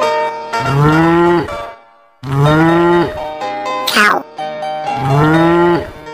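Cow mooing three times, each moo about a second long, over background music, with a quick upward swoop about four seconds in.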